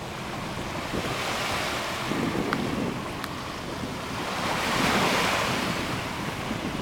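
Wind buffeting the microphone over the wash of small waves on a sandy shore; the hiss swells about five seconds in.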